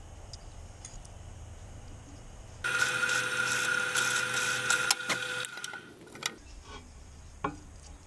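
Drill press running with a counterbore bit boring into a strip of wood, a steady whine over the cutting noise. It starts abruptly about two and a half seconds in and stops suddenly about three and a half seconds later, with a few clicks near the end.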